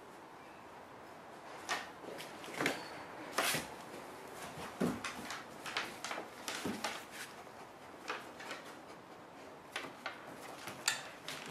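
Irregular knocks, clicks and soft thuds of a basset hound moving about a small room while searching for keys, a dozen or so scattered over several seconds and starting about two seconds in.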